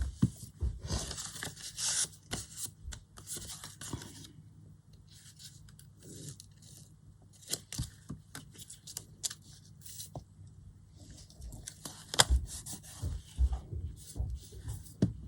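Hands working paper on a craft table: short bursts of paper rustling and rubbing, quieter through the middle, with a few small knocks near the end.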